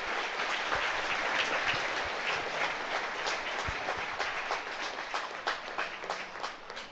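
Audience applauding, a dense patter of clapping that thins out and grows quieter toward the end.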